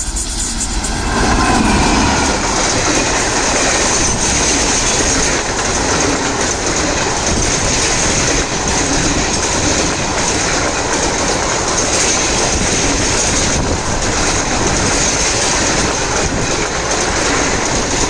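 Express train passing at speed close by: the Indian Railways electric locomotive goes by with a falling whine, followed by a long rake of ICF coaches. The wheels keep up a loud, steady noise with clacking over the rail joints.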